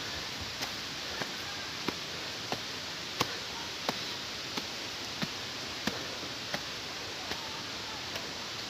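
Footsteps on a forest path, a regular step about every two-thirds of a second at a walking pace, over a steady hiss.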